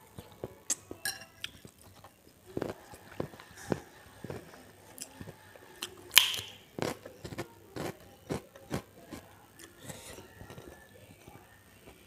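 Close-miked eating: soup taken from a spoon and chewed, with many small mouth clicks, then a loud crisp bite into a krupuk cracker about six seconds in, followed by crunchy chewing.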